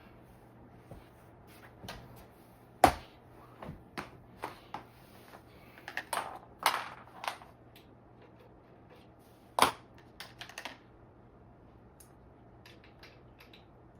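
Scattered clicks and clinks of hand tools and small metal parts being handled while brake-caliper screws are driven, with two sharper knocks about three and nine and a half seconds in.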